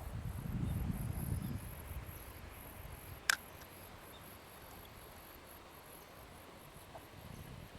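Insects chirping in a high-pitched, even pulse of several chirps a second, with a low rumble over the first two seconds and a single sharp click about three seconds in.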